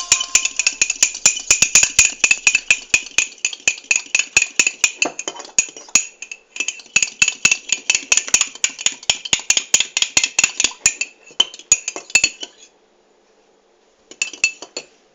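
Batter being beaten by hand, the utensil clinking rapidly against the sides of the dish at about five strokes a second, with a short break midway. It stops about twelve seconds in, and a few more strokes follow near the end.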